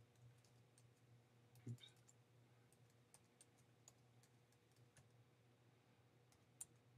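Faint computer keyboard clicks as a command is typed slowly, one key at a time, at irregular intervals. A slightly heavier key knock comes near two seconds in.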